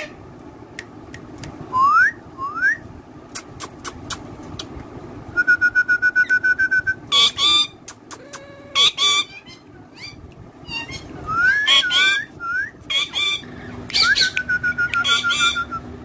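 Indian ringneck parakeet whistling and calling. There are two quick rising whistles, then a fast run of repeated notes, then harsher calls. More rising whistles and another fast run of notes come near the end.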